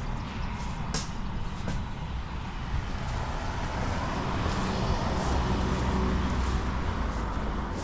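A steady, low engine rumble that swells a little partway through, with a couple of light knocks about a second in.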